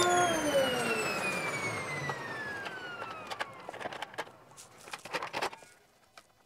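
Table saw motor and blade winding down after being switched off: a whine that falls steadily in pitch and fades over about three and a half seconds. It is followed by a few light clicks and knocks of wood and jig parts being handled on the crosscut sled.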